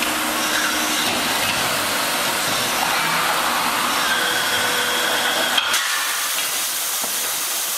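Automated aluminium die-casting cell (a WELLISH C/200 D cold-chamber die-casting machine with its extraction robot) running, a steady hiss of machinery and air. There is one sharp click about six seconds in.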